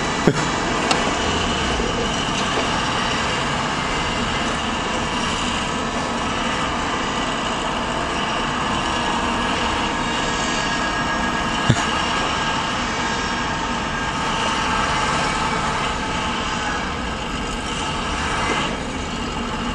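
Heavy truck engines running steadily as a tow truck tries to pull a stuck truck out of deep snow. A single sharp knock sounds about halfway through.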